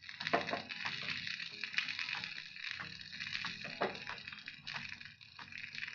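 Curry leaves, chillies and spices sizzling in hot oil in a kadai: a steady sizzle with frequent small crackles and pops.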